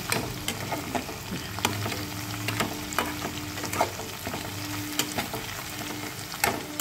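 Sesame-seed paste and fried fish sizzling in oil in a metal kadai, stirred with a metal spatula that scrapes and clicks against the pan every half second or so. The paste is being fried until the oil separates.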